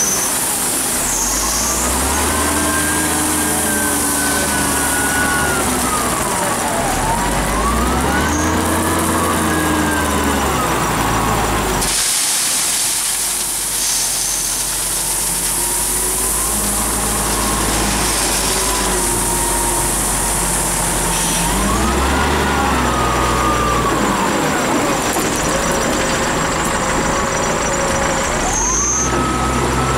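Kawasaki 90ZV wheel loader's diesel engine revving up and down over and over, its pitch climbing and falling every few seconds as it works the bucket. About halfway through, a rush of crushed stone pours from the bucket into a dump truck's bed.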